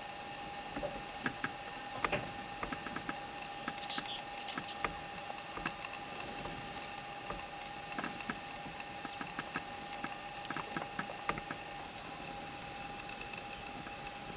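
Outdoor bush ambience: irregular soft clicks and crackles, scattered faint high chirps and a steady tone underneath.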